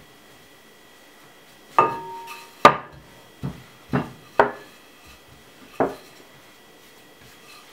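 Wooden rolling pin knocking on a kitchen countertop while roti dough is rolled out: about six sharp knocks over four seconds, starting about two seconds in, the first with a brief ring.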